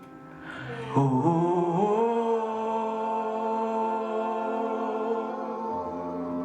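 Slow worship music: a voice slides up into one long held note over sustained accompaniment, and a low bass note comes in near the end.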